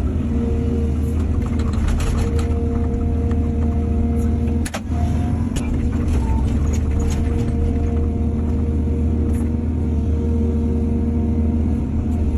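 Excavator's diesel engine running steadily under a steady whine, with a few sharp knocks, the clearest about five seconds in.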